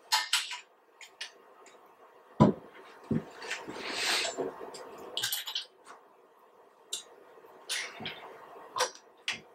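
Welding trolley frame being turned onto its side and handled on a tabletop: scattered knocks and clicks, a heavier thump about two and a half seconds in, and a short scrape around four seconds.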